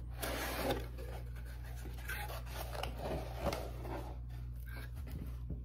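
Small cardboard box being opened by hand: irregular scraping and rustling of the flaps, with the rubberized shooting rest brushing the cardboard as it is lifted out. The rustling stops near the end.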